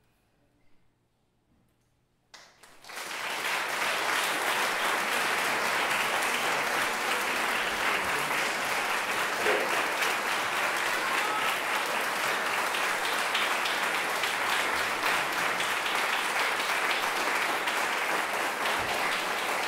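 Near silence for a couple of seconds, then an audience breaks into applause all at once and keeps clapping steadily.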